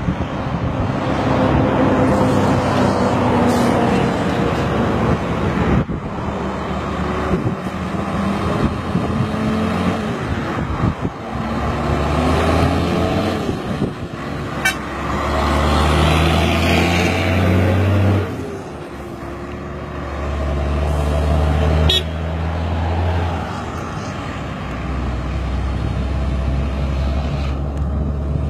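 Scania 'Jacaré' truck's diesel engine running, its pitch climbing and dropping several times as it revs, with two sharp clicks.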